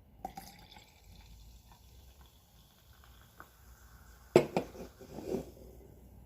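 A small metal can handled close to the microphone: a few light clicks early on, then a loud cluster of sharp taps and knocks about four and a half seconds in, and another short group about a second later.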